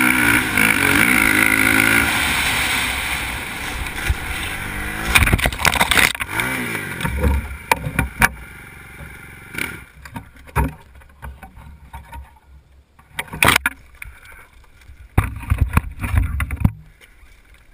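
Race quad's engine revving hard, its pitch rising and falling, then dropping away about ten seconds in as the ATV crashes into brush. Sharp knocks, scrapes and short bursts of noise from the quad and branches follow.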